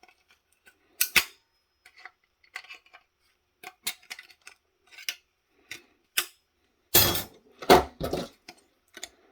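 Circuit boards and small hard parts from a disassembled cordless headset base station being handled on a work surface. Scattered clicks and taps, with a burst of louder knocks and clatter about seven seconds in.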